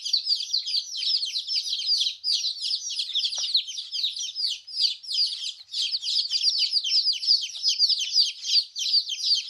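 A crowd of baby chickens peeping without pause, many short, high, downward-sliding peeps overlapping each other.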